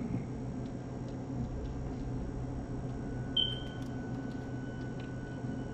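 Quiet horror-film soundtrack played back in a small room: a steady low hum with a few faint ticks, and one short high-pitched squeak a little past halfway.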